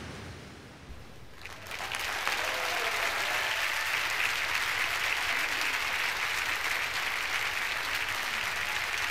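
Large audience applauding in a big hall: the clapping breaks out about a second and a half in and then holds steady as a dense, sustained ovation.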